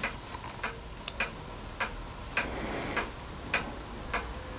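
A clock ticking steadily, a little under two ticks a second.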